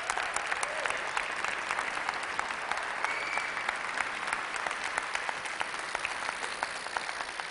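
Audience applauding: a dense, steady clatter of many hands clapping.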